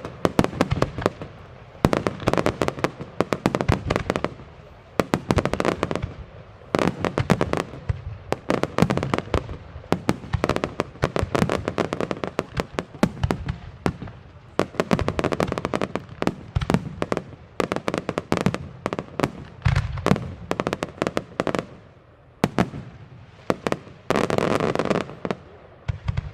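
Fireworks finale: salutes and aerial shells going off in dense rapid volleys of sharp bangs. The volleys come in waves with brief lulls, and there is a deeper boom about twenty seconds in.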